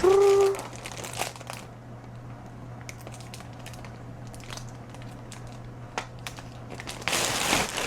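Bags rustling and crinkling as wool fibre is handled and packed. The rustling is loud for the first second and a half and again near the end, with soft scattered crackles in between.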